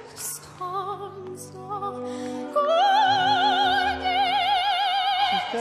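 A 13-year-old girl singing opera with a wide vibrato over a backing of held chords. Two short phrases with quick breaths between them, then about two and a half seconds in she rises to a loud, long held note.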